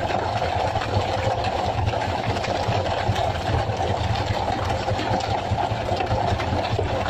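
Fishing boat's engine running steadily, a fast, even rumble that doesn't change.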